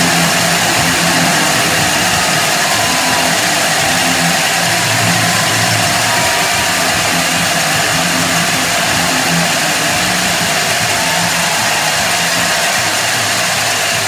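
CO2 smoke cannons blasting continuously, a loud steady hissing roar.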